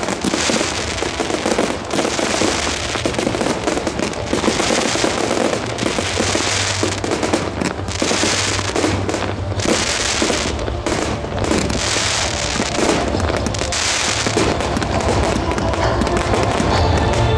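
Aerial fireworks display: gold crackle shells bursting and crackling without pause, with a fresh burst every second or so. Music plays underneath and comes through more clearly near the end.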